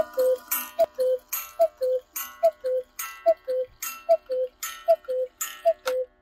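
Romba & Haas 8-day mechanical cuckoo clock sounding its bellows-blown two-note cuckoo call, high note then low, with a breathy puff on each note. It repeats steadily about eight times, a little faster than once a second, as the clock counts out the hour. The last call ends shortly before the end.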